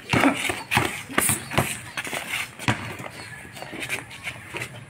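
Boxing gloves smacking during sparring, several sharp hits at irregular intervals, with onlookers' voices in the background.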